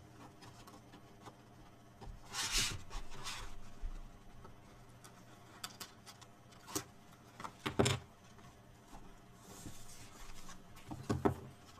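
Protective liner being peeled off adhesive tape on a cardstock piece: a rasping peel about two seconds in, then a few sharp taps and soft rustles as the paper is handled.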